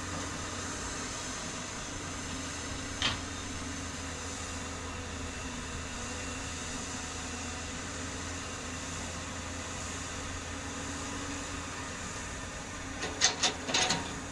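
Heavy diesel engines of an excavator and dump truck running steadily at a distance. There is one sharp knock about three seconds in and a quick cluster of louder clunks near the end.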